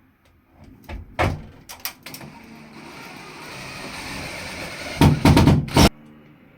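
Sharp knocks and clatter of hard parts being handled and fitted: a few knocks about a second in, a hiss that swells in the middle, then a quick cluster of loud knocks near the end.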